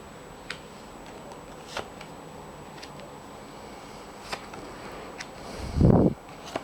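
Lenormand cards being laid out on a table: a few short, light snaps of cards being set down, spaced a second or so apart. Near the end comes one loud low rumbling thump lasting about half a second.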